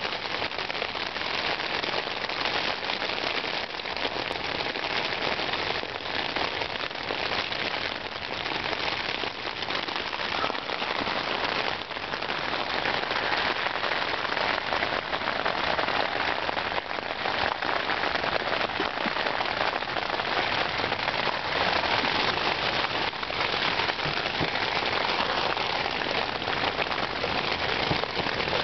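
Heavy wind-driven rain falling hard on a surface, a dense, steady patter of drops.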